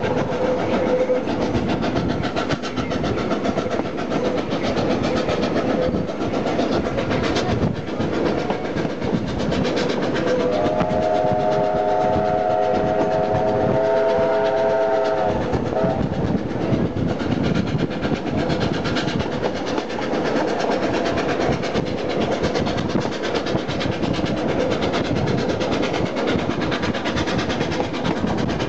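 Steam train climbing a steep grade, heard from a carriage window: a steady running noise with wheels clattering over the rail joints. About ten seconds in, the locomotive's chime steam whistle blows one held, multi-note chord for about five seconds.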